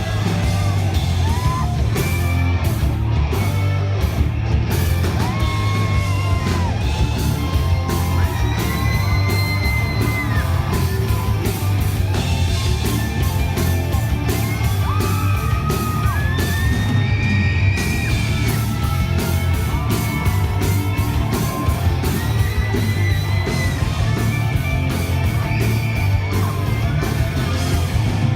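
Live rock band playing loudly, with pounding drums and heavy bass, and a singer belting long held, yelled notes over it.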